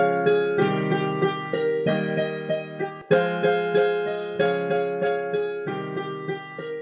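Instrumental ending of a song with no singing: sustained chords, a new chord struck every second or so, slowly fading out.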